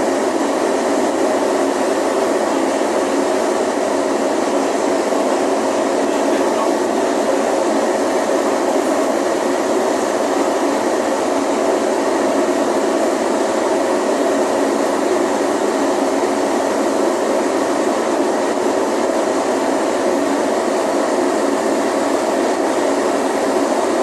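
Steady, loud mechanical drone of machinery and ventilation, unchanging throughout with no knocks or breaks.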